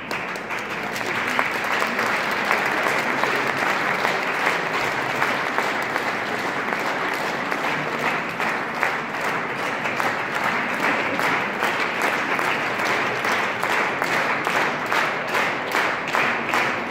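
Audience applauding: dense clapping that, near the end, falls into rhythmic clapping in unison at about two claps a second.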